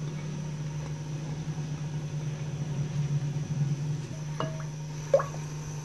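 Steady low hum from the electric cooktop under a clay handi pot, with two sharp clinks about four and a half and five seconds in as a spatula knocks against the pot.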